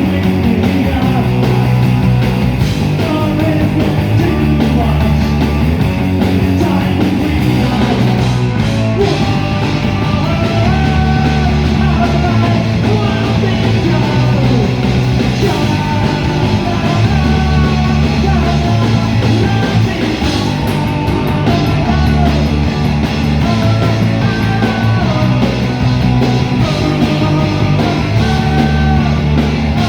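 Live rock band playing a loud, punk-rock-style song.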